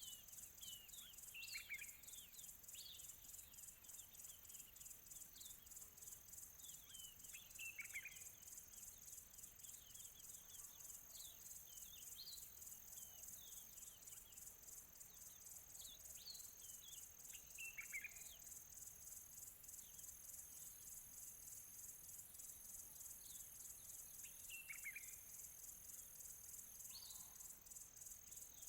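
Faint birdsong: short chirps that slide downward in pitch, coming in small clusters every few seconds. Beneath them runs a steady, high, fast-pulsing insect trill like crickets.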